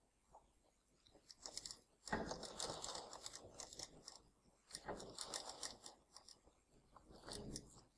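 Sewing machine stitching a zip into a garment in three short runs: about two seconds, then about a second and a half, then a brief half-second run near the end, each a rapid clicking of the needle mechanism.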